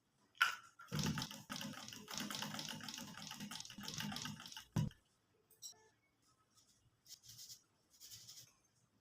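A sharp click, then a sewing machine running in a rapid, even rattle for about four seconds before stopping abruptly; a few faint light knocks follow.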